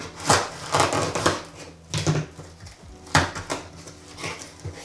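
A cardboard box being torn open by hand: a string of irregular rips and scrapes as the taped seam and flaps are pulled apart, then plastic wrap inside rustling near the end.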